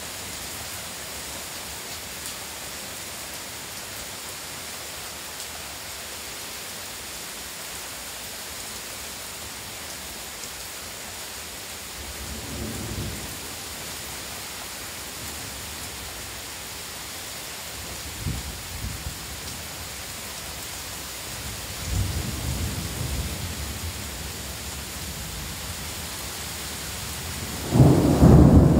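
Heavy rain falling steadily with a constant hiss, with low rolls of thunder rumbling three times. Near the end a sudden, much louder burst of noise cuts in.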